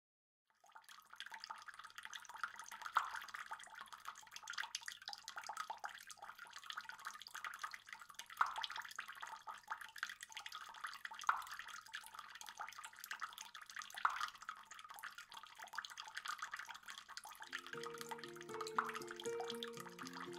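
Water trickling and dripping, a steady patter of fine drops with a louder single drop every few seconds. A simple melody of short notes comes in near the end.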